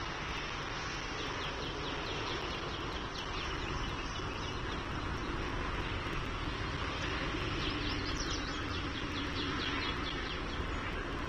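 Two runs of rapid, high bird chirps in quick series, the first early and the second about seven seconds in, over a steady outdoor background rumble.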